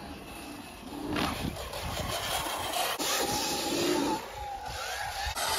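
Sur-Ron electric dirt bike riding over dirt: its electric motor whine rises and falls, with tyre noise on the dirt. The sound changes abruptly about three seconds in.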